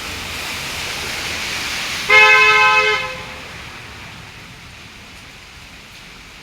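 A vehicle horn honks once for about a second, about two seconds in, over a steady background hiss that dies down after the honk.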